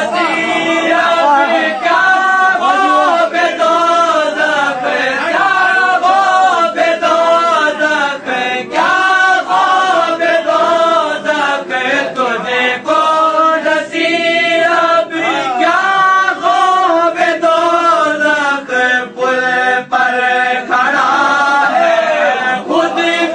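A man's voice chanting a devotional verse unaccompanied, in long melodic phrases with held, wavering notes and short breaks for breath.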